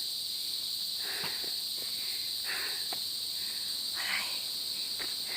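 Insects in the mountain forest keep up a steady, high-pitched drone. A few soft rustles come about one, two and a half, and four seconds in.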